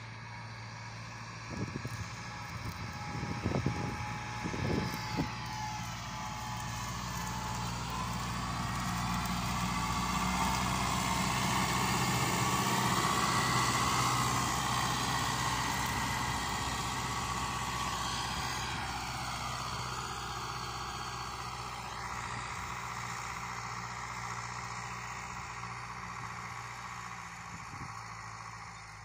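Steyr 8073 tractor's diesel engine running steadily under load as it pulls a plough, growing louder as it passes close by around the middle and fading as it moves away. A few brief thumps in the first five seconds.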